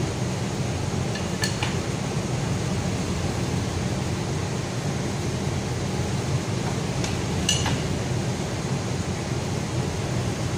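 Wrenches on steel flange bolts clinking as the bolts of a 4-inch pipe flange are tightened: one sharp clink about a second and a half in and another about three-quarters of the way through, over a steady low hum.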